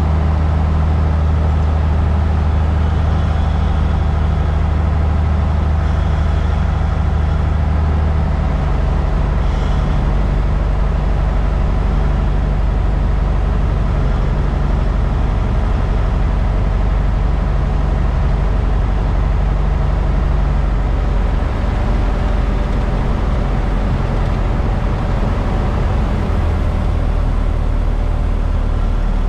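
Cessna 172's Continental O-300 six-cylinder engine and propeller droning steadily inside the cockpit. About eight seconds in its pitch drops lower as power is reduced for the approach to land.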